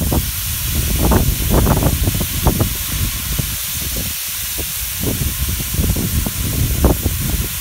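Canned diced tomatoes and their juice poured onto a hot Camp Chef flat-top griddle over browning beef, sizzling with a steady hiss and scattered crackles as the liquid turns to steam.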